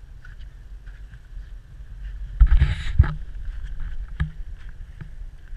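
Wind buffeting the microphone: a steady low rumble, with a louder blast about two and a half seconds in and a few sharp knocks after it.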